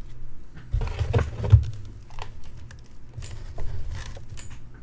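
Handling noises on a tabletop: scattered short clicks and knocks, with a cluster of low thumps about a second in over a faint low hum.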